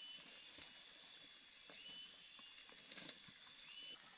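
Faint tropical forest ambience: a short call that rises and then holds steady repeats about every two seconds, with higher hissy bursts between calls and a couple of sharp clicks about three seconds in.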